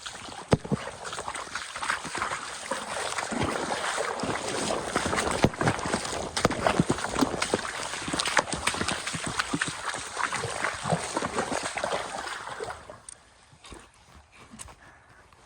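Water splashing and gurgling, mixed with many sharp knocks and clatters, stopping suddenly about 13 seconds in.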